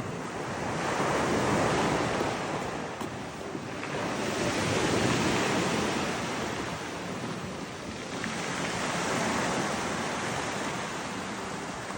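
Black Sea waves breaking on the beach, the surf swelling and fading three times, about four seconds apart.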